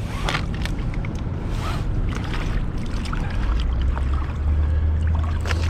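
Boat engine running with a low drone that grows louder about three and a half seconds in, with scattered knocks over it.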